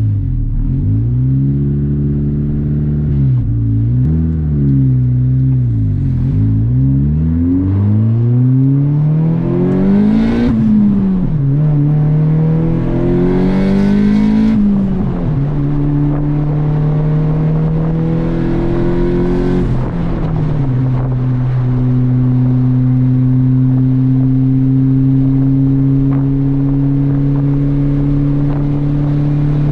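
Turbocharged Honda hatchback engine running through a 2.5-inch straight-piped downpipe and Vibrant resonator, heard from inside the cabin. The revs rise and fall several times, then climb through two upshifts and settle to a steady cruise with a drone that is way too drony in the cabin.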